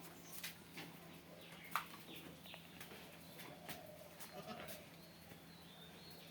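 Two-day-old male Assam Hill goat kid bleating faintly in short calls, with a few sharp clicks, the loudest a little under two seconds in.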